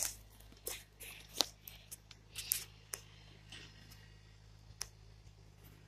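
Footsteps crunching and crackling on dry leaves and twigs: irregular short crackles about twice a second, thinning out after about three seconds, with one more sharp crackle near the end.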